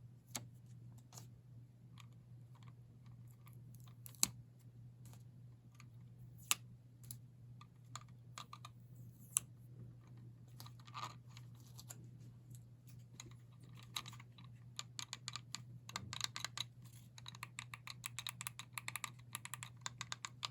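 Protective plastic film being peeled off the buttons of a smart wall switch: faint scattered clicks and crinkles, turning into a dense run of quick crackling clicks in the last several seconds, over a low steady hum.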